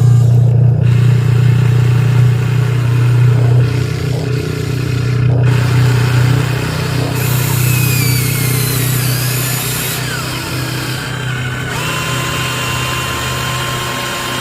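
Miniature RC construction models at work: a steady low engine-like drone from the toy machines, with a whining electric motor and gear noise that swells and glides down in pitch about halfway through.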